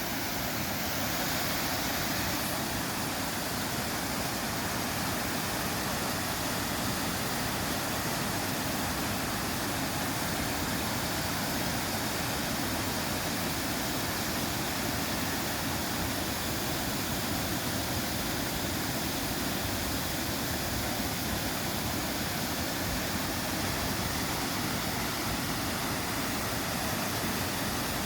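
Waterfall on a brook rushing steadily, full and loud after a night of rain.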